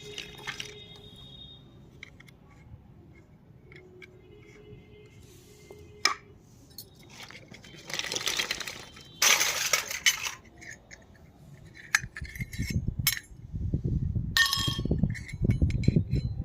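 Small hard plastic toy kitchen pieces clicking and clinking as they are handled. There are two longer rustling bursts about halfway through, and a run of low bumps and knocks in the last few seconds.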